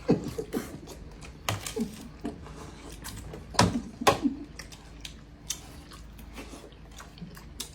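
Eating sounds: chewing, with a few scattered short clicks and knocks, two of the sharpest about halfway through.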